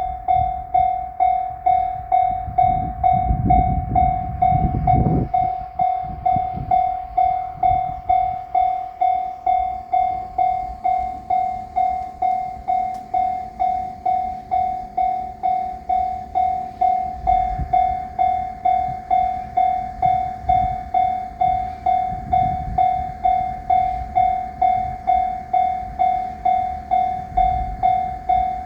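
Japanese level-crossing alarm ringing its steady, fast repeating ding, over the low rumble of a train passing on the rails, heaviest in the first few seconds.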